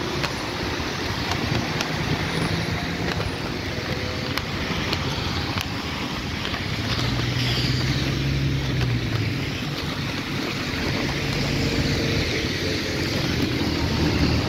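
Street traffic on wet roads: a steady hiss of tyres on wet asphalt with city buses' engines running, an engine hum coming up in the middle and again near the end as a red city bus passes close.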